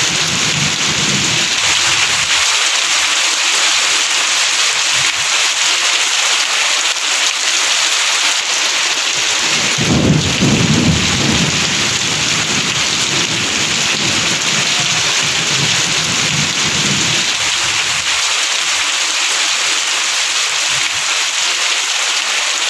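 Heavy rain falling steadily with a dense, even hiss, and low rumbles of thunder: a short one at the start and a louder, longer one that begins about ten seconds in and fades over several seconds.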